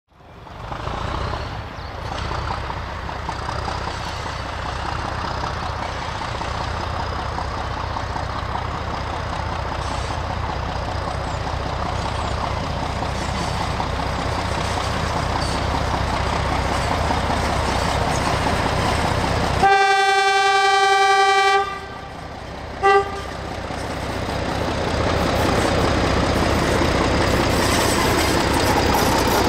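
English Electric Dg class diesel-electric locomotive running under load, growing slowly louder as it approaches and passes. About twenty seconds in it sounds its horn: one long blast, then a short toot about a second later.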